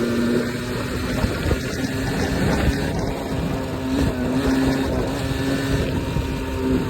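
Beta RR 50's 50cc two-stroke single-cylinder engine running at a steady pitch with small rises and dips, with wind rumbling on the microphone.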